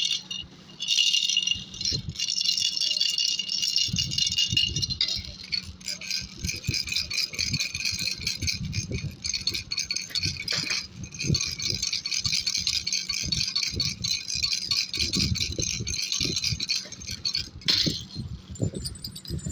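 Baby rattle with small bells being shaken continuously, a steady high jingling over irregular low knocks from the handling; the jingling stops near the end.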